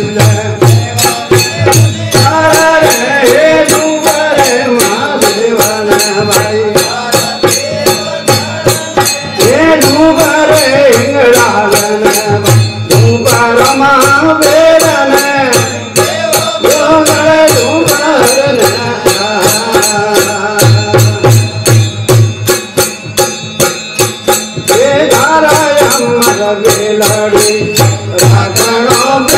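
Marwari devotional bhajan sung live by a man's voice, accompanied by a plucked long-necked string instrument and a quick, steady rattling percussion beat.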